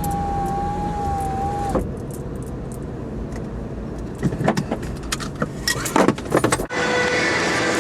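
Car interior noise with a steady electronic tone for a little under two seconds, then a cluster of sharp clicks and rattles about four to six seconds in. The sound changes abruptly near the end to a louder, steady hiss.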